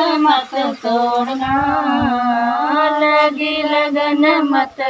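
Women singing a devotional song (bhajan) unaccompanied, in long held notes that waver slowly in pitch, with a short breath about a second in and another near the end.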